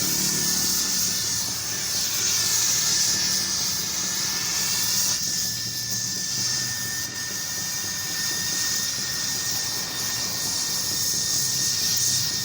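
Steady hissing noise of welding on a motorcycle exhaust pipe, with a thin steady high tone running through it.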